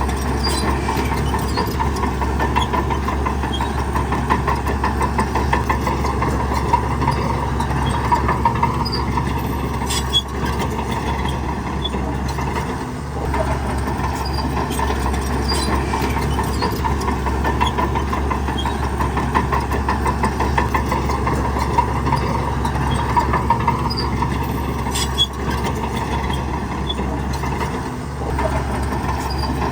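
Shantui crawler bulldozer at work: its diesel engine runs steadily, with a fast, even metallic rattle over it and scattered sharp clicks.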